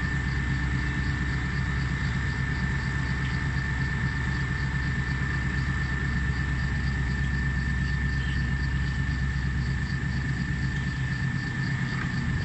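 Diesel engines of a Komatsu excavator and a dump truck running steadily while the excavator works its arm, with a steady high whine over the low engine hum. The deepest part of the rumble drops away near the end.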